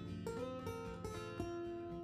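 Instrumental background music on acoustic guitar, strummed and plucked, picking out a melody of changing notes.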